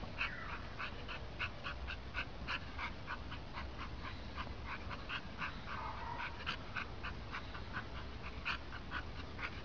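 A dog giving rapid short, high-pitched yips, about three or four a second, over a faint low hum.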